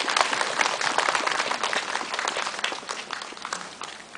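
Audience applauding, many hands clapping densely and then thinning out near the end.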